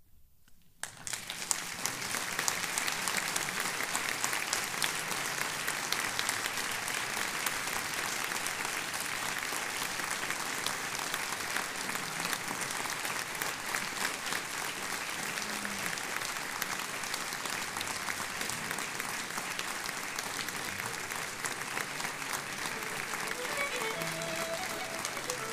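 About a second of silence, then a concert audience breaks into applause that goes on at a steady level; near the end a few held musical tones come in over the clapping.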